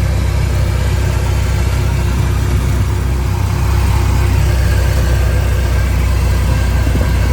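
1923 Model T Ford's four-cylinder flathead engine running steadily under throttle while the roadster drives along, its sound low and even.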